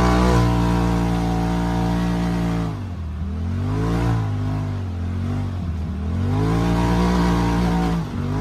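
Polaris RZR Pro XP side-by-side's turbocharged twin-cylinder engine running hard under throttle. The revs fall off about three seconds in, climb back, sag again and rise to hold high before a brief lift near the end.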